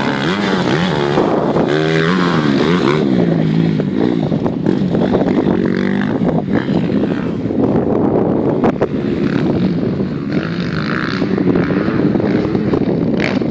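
Motocross bike engine revving hard around a dirt track, its pitch climbing and dropping again and again with throttle and gear changes. It is loudest in the first few seconds, then fainter as the bike rides away.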